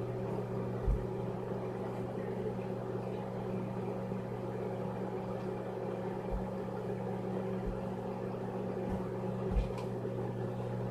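Microwave oven running with a steady electrical hum while it heats an egg in water. A few short, soft low thumps break through, the loudest about a second in and near the end.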